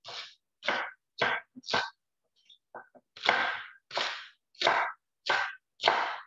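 Chef's knife thinly slicing a fennel bulb on a cutting board: a crisp cut and knock about every two-thirds of a second, some nine strokes with a short pause about two seconds in.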